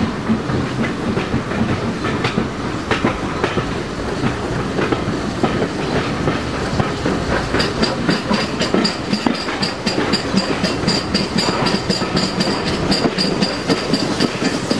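Steam-hauled train moving slowly over pointwork and rail joints, the wheels clattering and knocking. From about eight seconds in a quick, even clicking comes in.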